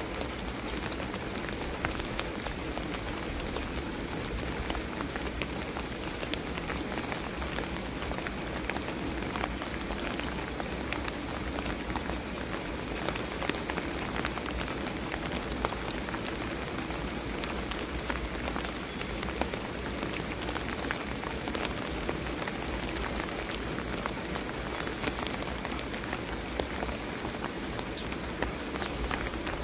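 Steady light rain falling: a continuous hiss of drizzle with fine pattering of many small drops.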